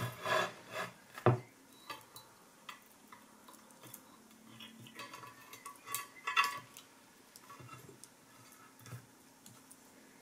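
Aluminium plate and a small machined aluminium part handled by hand: scattered metallic clinks, taps and scrapes as the part is pried free of its cut tabs with a small tool. The loudest clinks come just after the start and about six seconds in.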